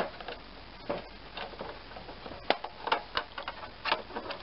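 Clear plastic headlight cover on a Craftsman lawn tractor hood being pried off with a flat tool: a run of irregular sharp clicks and snaps as its plastic clips work loose and let go.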